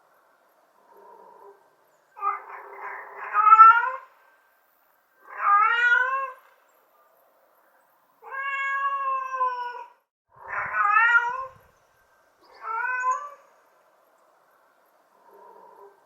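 Mother cat calling for her kittens with a series of meows: about five loud calls a second or two apart, several rising in pitch and one held longer and level, with two faint short mews in between.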